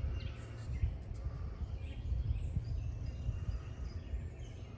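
Outdoor ambience: a low, uneven rumble with faint, scattered bird chirps.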